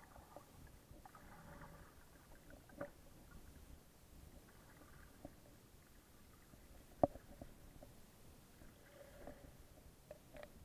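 Muffled underwater sound in shallow sea water: a faint low rumble of moving water with scattered small clicks and knocks, the sharpest about seven seconds in and a few more near the end.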